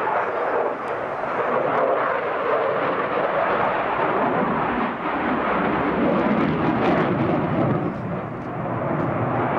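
Eurofighter Typhoon's twin Eurojet EJ200 turbofans: continuous jet noise from the fighter in flight overhead, its sound shifting lower from about six seconds in.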